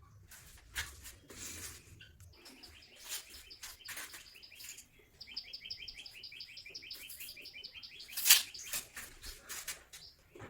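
A bird chirping in two quick runs of short, evenly repeated high notes, each run lasting a few seconds, among scattered clicks and knocks. One sharper knock comes near the end.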